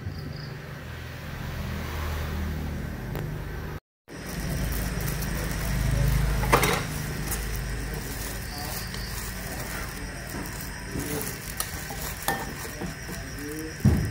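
Cooking oil sizzling in a pan over a steady low rumble. Metal utensils clink against the pan a few times near the end.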